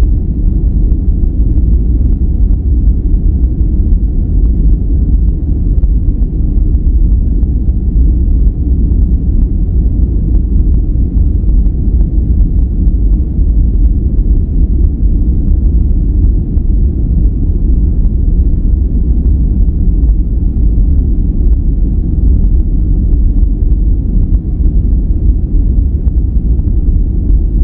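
A steady, unchanging noise track played for relaxation and sleep. It is deep and rumbling, heaviest in the bass, with almost no treble, so it sounds closer to brown noise than to bright white noise.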